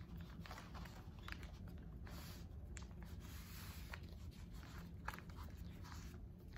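Faint rustling of newspaper being rolled around a jar by hand, with a few light crinkles and taps spread through.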